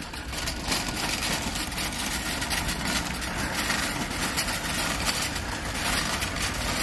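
Shopping carts rolling over pavement: a steady rumble of wheels with many small rattles and clicks from the nested wire baskets.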